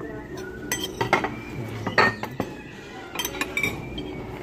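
Ceramic plates and bowls clinking against each other and against metal cutlery as dishes are set down and handled at a table, with several sharp clinks, the loudest about two seconds in.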